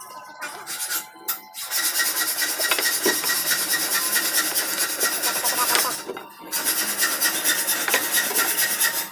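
Steady rasping of a wooden quarter-round molding strip being worked by hand, in two long runs with a short break about six seconds in.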